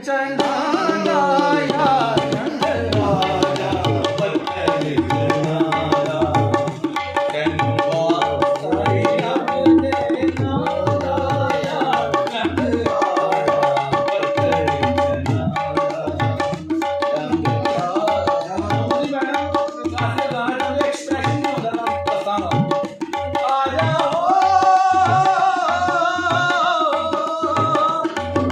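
A live Punjabi folk song: a man singing over harmonium, with a hand drum keeping a steady beat.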